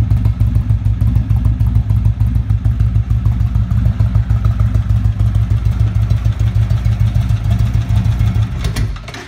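2014 Indian Chief Vintage's air-cooled Thunder Stroke 111 V-twin idling with a loud, steady, pulsing exhaust beat through slip-on mufflers, the catalytic converter removed from the exhaust. The engine sound stops just before the end.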